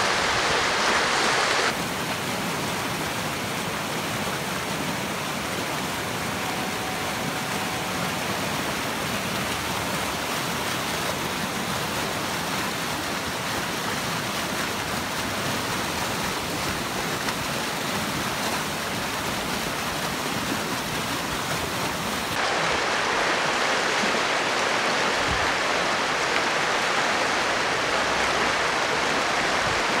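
Rain-swollen creek in flash flood, its muddy water rushing steadily over rocks. The sound drops in level about two seconds in and comes back up about 22 seconds in.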